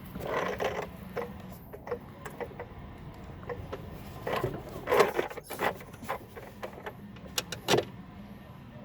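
Irregular clicks and knocks of hand tools and bolts being fitted to a lawn mower during reassembly, with the loudest knock about five seconds in.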